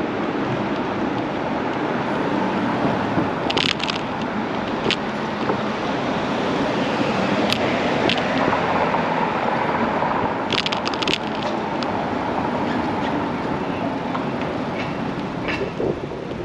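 Steady rushing wind noise on the microphone of a camera moving along a city street, mixed with passing traffic, with a few short sharp clicks and rattles scattered through.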